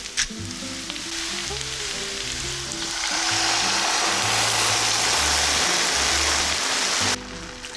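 Food sizzling as it fries in oil in a pan, a steady hiss that grows louder about three seconds in and cuts off abruptly near the end. Background music plays underneath.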